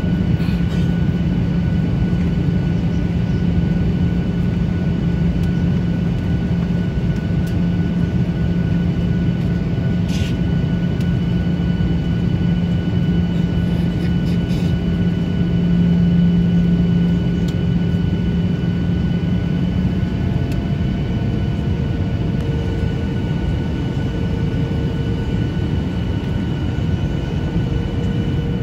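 Steady cabin noise inside a Boeing 737-800 airliner: the rumble of its CFM56 turbofan engines and the airflow, with a low hum that fades out about two-thirds of the way through.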